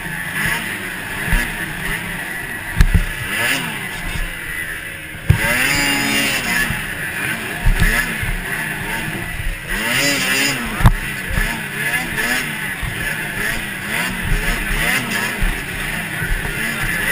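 Two-stroke twin engine of a 2006 Ski-Doo MXZ-X 440 snowmobile revving up and off over and over as it races, heard from the rider's helmet. A few sharp thumps cut through, about three seconds in and again near eleven seconds.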